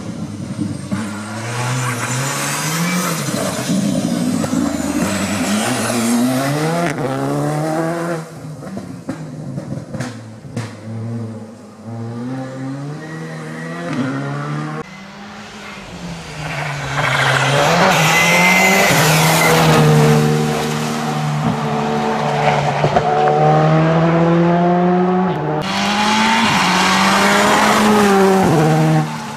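Rally car engine revving hard and changing gear as the car passes at speed, its pitch climbing and dropping in steps with each shift, over tyre noise on a wet road. A few separate passes follow one another.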